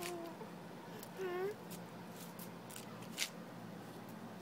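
A toddler's short, high-pitched wordless squeals: one right at the start and a rising-and-falling one about a second in. A few light clicks from his sandal steps on asphalt follow.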